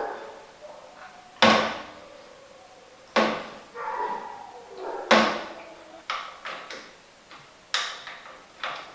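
Sharp metal clanks and knocks, about five, each ringing briefly, from tools and fork parts being handled as the front fork is refitted to the dirt bike.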